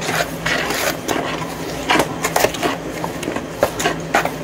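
A utensil stirring wet oat batter in a plastic mixing bowl, with irregular scrapes and knocks against the bowl's sides.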